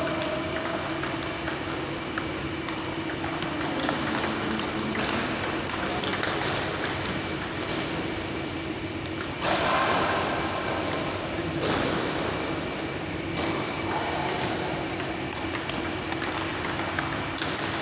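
Table tennis ball clicking off bats and table during rallies, with a few short high squeaks between the hits.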